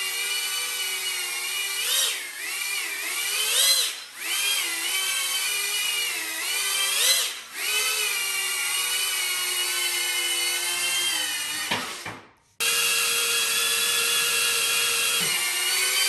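Diatone Taycan 25 cinewhoop's motors and ducted propellers whining in flight, fitted with snap-in duct inserts meant to lower its tone and loudness. The steady whine rises and dips in pitch about 2, 4 and 7 seconds in as the throttle changes. It drops away around 12 seconds, then comes straight back steady.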